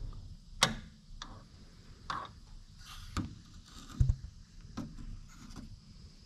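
Scattered light clicks and knocks, about seven in six seconds and irregularly spaced, from hand handling of hoses and plastic parts in the engine bay with the engine off.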